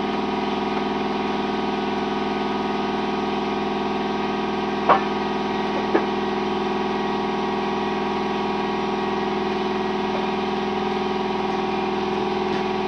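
A motor or engine running steadily at a constant speed, an even drone, with two short clicks about five and six seconds in.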